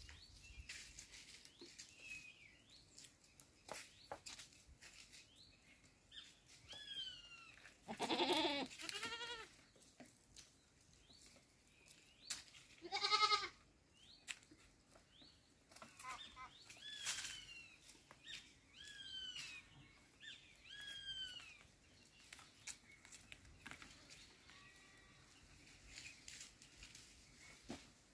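Black goats bleating: two loud, quavering bleats, about eight and thirteen seconds in, among short high falling chirps.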